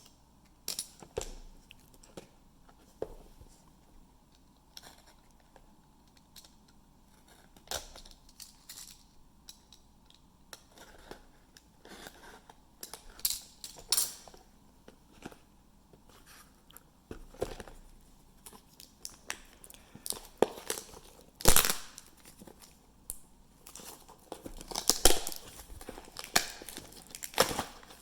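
Blaster box of trading cards being opened by hand: scattered tearing, crinkling and rustling of the packaging. There is a sharp tear about 21 seconds in, the loudest sound, and a close run of rustling near the end.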